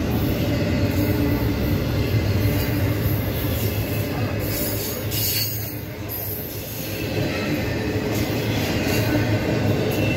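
Double-stack intermodal freight train's well cars rolling past close by: a steady rumble and rattle of steel wheels on the rails, easing briefly about halfway through.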